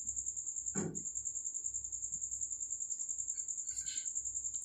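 A cricket chirping in a steady, high, rapidly pulsing trill. A soft knock comes about a second in, and a pen scratches briefly on notebook paper near the end.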